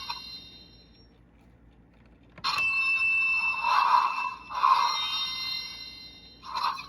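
Electronic sound effects from the PREMIUM DX Memorial Gotcha Igniter toy's speaker: after a ringing tone dies away, a sharp click about two and a half seconds in sets off bright, bell-like chiming with steady high tones and several swells that slowly fade, with one short last swell near the end.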